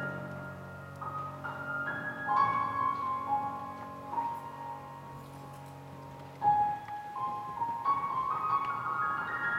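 Grand piano played solo: single notes and chords ringing with long sustain, one note struck hard about two-thirds of the way through, then a line of notes stepping upward near the end.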